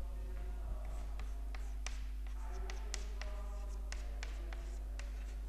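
Chalk writing on a chalkboard: a quick, irregular run of sharp taps and short scrapes as letters are drawn.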